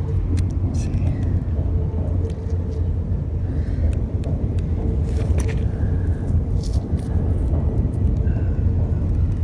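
Steady low motor rumble with a faint hum, under scattered light clicks of pebbles and clay pipe fragments being picked over by hand.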